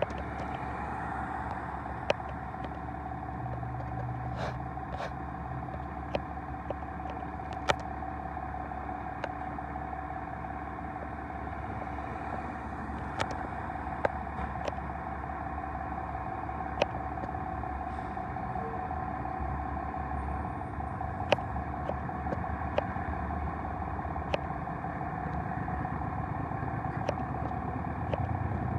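A vehicle engine running steadily, a low rumble with a constant hum, broken by scattered sharp clicks; no siren or horn sounds.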